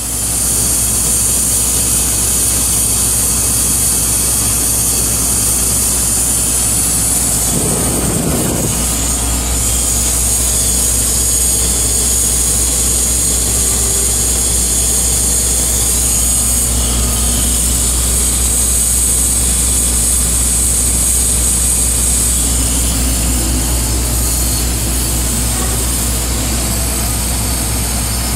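Heavy site machinery running steadily: a low engine drone with a constant high hiss over it, and a brief rumble about eight seconds in.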